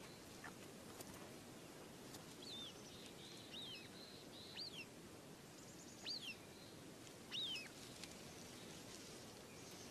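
About five short, high chirps, each sliding down in pitch, spaced roughly a second apart, over a faint steady outdoor hiss.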